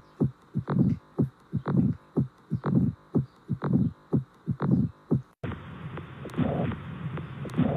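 Recorded heart sounds: a steady heartbeat of about one beat a second, each beat a short sharp sound followed by a longer, lower one. About five seconds in it cuts to a different heart recording, with softer, more drawn-out beats over a constant hiss.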